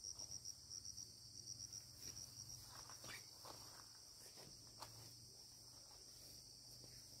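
Faint insect chirping: a high trill that pulses in quick chirps for the first couple of seconds, then runs on evenly. A few faint knocks are scattered through it.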